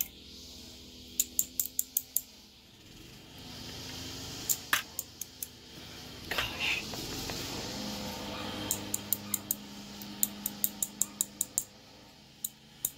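Light metallic clicking and ticking in quick runs: a thin steel tool tapping against a brass lock plug and its small pins as the pins are taken out.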